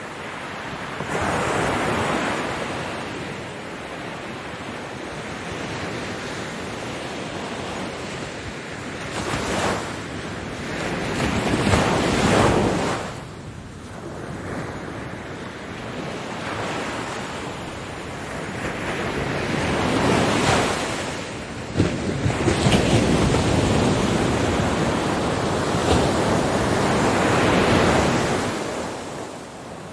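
Ocean waves breaking on a beach, the surf surging and ebbing every several seconds, with the longest, loudest surge over the last third.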